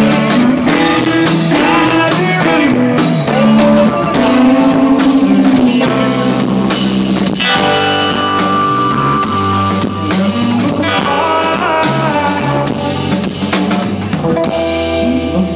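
Live rock band playing an instrumental passage: electric guitars and bass over a drum kit, with the guitars playing moving melodic lines over steady drumming.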